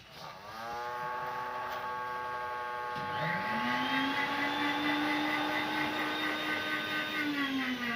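Small electric motors of a homemade remote-control bottle car whining as they run. One motor spins up about a second in. A second one joins just after three seconds with a rising whine, holds steady, then slows and falls in pitch near the end.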